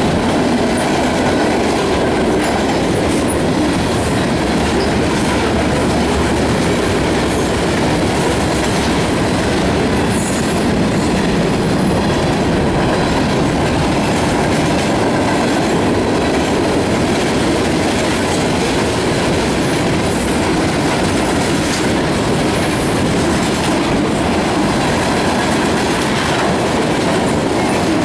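Freight cars of a mixed train rolling past close by: a steady, loud rumble and clatter of steel wheels on the rails.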